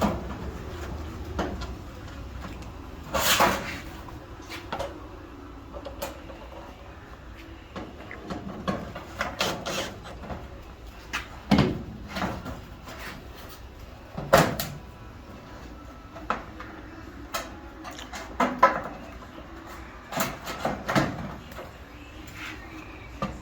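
Irregular knocks, clicks and rattles of dryer cabinet parts being handled and fitted back into place during reassembly.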